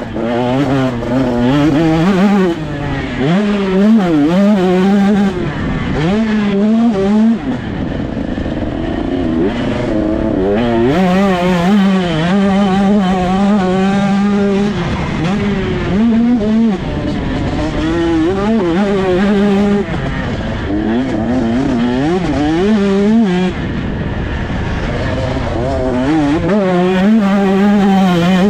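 2021 KTM 125 SX's single-cylinder two-stroke engine at race pace, revving up through the gears and dropping off again over and over as the throttle opens and closes, sometimes held high for a second or two. Heard from the rider's helmet camera.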